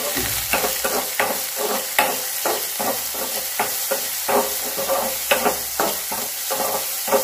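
Steel spoon scraping and knocking against a black pan, about three strokes a second, as chopped onion and green chillies are sautéed in oil. The oil sizzles steadily underneath.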